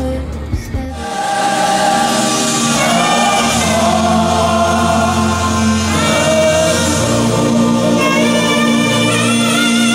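Gospel choir singing with a live band, holding long sustained chords; the full music sets in about a second in.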